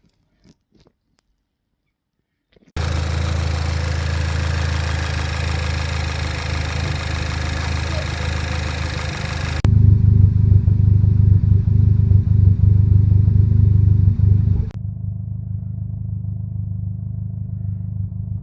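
Audi A3 8P's 1.8 TSI turbocharged four-cylinder petrol engine idling with an idle misfire, which the owner thinks is down to failed spark plugs. It starts suddenly a few seconds in. About halfway it turns abruptly louder and deeper, then drops back quieter a few seconds later.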